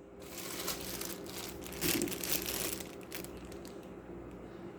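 Packaging rustling and crinkling as medicine supplies are handled, loudest about two seconds in and dying down after about three seconds.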